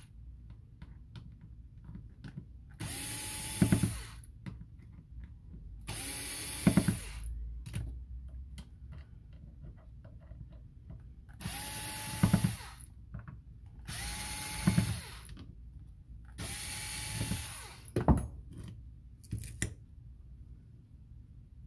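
Cordless drill-driver backing the side-plate screws out of a Penn 113 fishing reel in five short runs of about a second each, each run ending in a brief rattle. A few sharp clicks follow as the loosened parts are handled.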